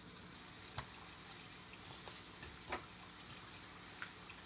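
Faint steady trickle of water from an aquarium filter, with three soft taps as a paper picture book is handled.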